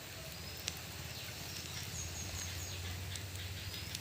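Oil crackling faintly under a cooking adai on a hot pan, a few sharp ticks over a steady low hum. Small birds chirp in the background, a quick run of four short high chirps about two seconds in.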